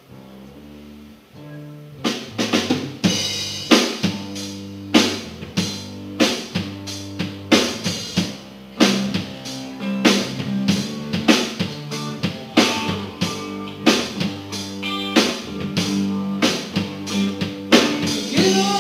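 Live rock band: a few low guitar notes play alone, then about two seconds in the drum kit and the full band come in with a steady beat of kick and snare under electric guitars.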